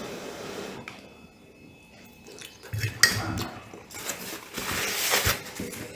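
A metal fork clinks sharply against a ceramic plate about three seconds in. A paper napkin then rustles briefly.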